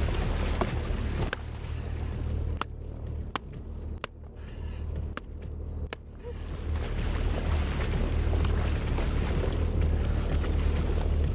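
Yamaha WaveRunner jet ski running slowly with water rushing and splashing along the hull as a marlin is towed alongside. The noise drops for a few seconds in the middle, broken by several sharp clicks, then comes back up.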